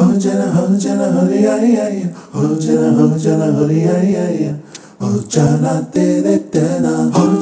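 Singing with little or no instrumental backing, a voice rising and falling in pitch, broken by a few short pauses.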